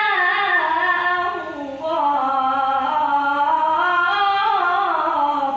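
A boy's solo voice reciting the Quran in long, melodic held phrases (tilawat), with no instruments. The first phrase slides down in pitch and ends just under two seconds in. After a brief breath, a second phrase rises and then falls again.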